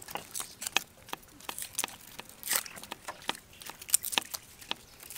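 Garlic cloves peeled by hand, the dry papery skins crackling and tearing in irregular short snaps, with the light clicks of a kitchen knife trimming cloves on a wooden chopping board.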